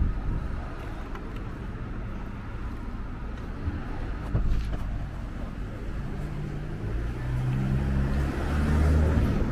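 City street traffic with the low running hum of a motor vehicle's engine, growing louder in the last few seconds.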